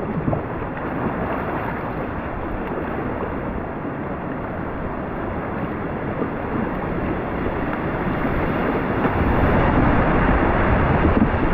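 River whitewater rushing, heard from a kayak on the water. It is a steady rush that grows louder about two-thirds of the way through as the boat drops into a narrow chute between boulders.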